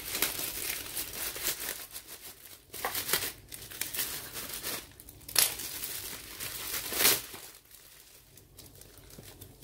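Plastic packaging crinkling and rustling as a wrapped box is handled and slid out of a clear plastic bag, with irregular crackles, two loud ones about five and seven seconds in, then fainter rustling near the end.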